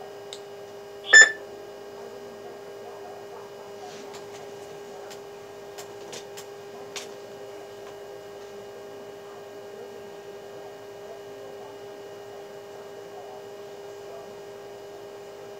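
A single short electronic beep about a second in from the Icom D-STAR transceiver and SharkRF Openspot hotspot just after a transmission ends, then a steady electrical hum with a few faint clicks.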